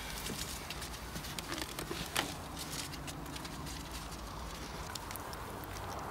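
Paper takeaway bag rustling and crinkling as hands rummage inside it, with irregular crackles and a sharper rustle about two seconds in.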